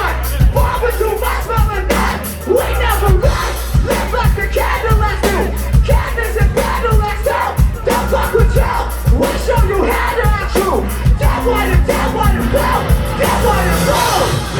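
Live rap-rock band playing loud, with heavy, dense drum hits and deep bass under bending vocal lines.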